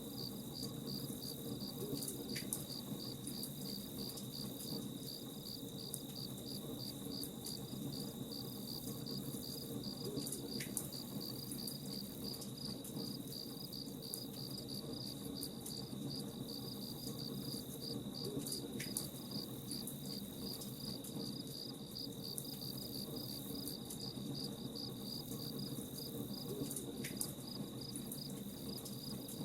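Crickets chirping in a fast, even pulse over a steady high insect trill, with faint scattered crackles from a campfire beneath.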